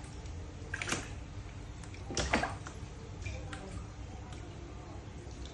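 Baby macaques moving about in a plastic tub of water: two short, sharp sounds about one and two seconds in, over a low steady hum.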